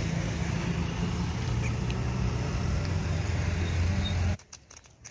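A steady engine hum, like a motor vehicle running nearby, that cuts off abruptly about four seconds in, leaving faint clicks.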